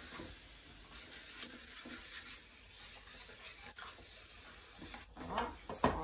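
Onions in butter with brown sugar and balsamic vinegar sizzling faintly in a frying pan, with a few light taps of a wooden spatula. Near the end comes a short, louder vocal sound whose pitch bends up and down.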